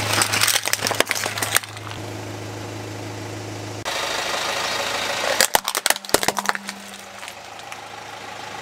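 A car tyre rolling over plastic toys and crushing them, with two runs of sharp plastic cracking and snapping: first a transforming robot toy, then, about five seconds in, a toy tanker truck breaking apart. The car's engine runs steadily underneath.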